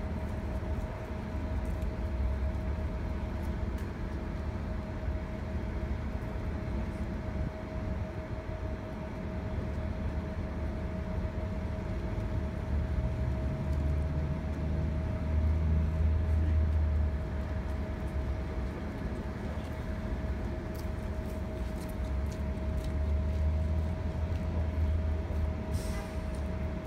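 City transit bus standing at idle: a low engine rumble that swells twice and eases, with a steady whine held over it throughout.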